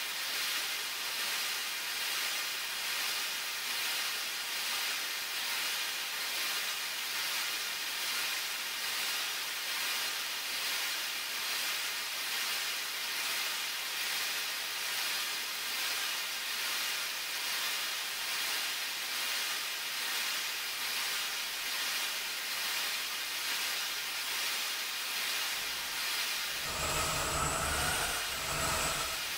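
Home-made electronic track slowed down fourfold into a space-ambient drone: a steady, hissing wash of noise with a faint, regular pulse. About 27 seconds in, deep bass and sustained held tones come in.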